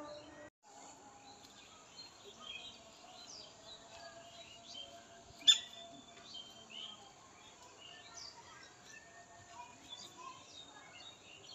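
Quiet outdoor background with scattered short chirps and calls of small birds, and one sharp click about five and a half seconds in.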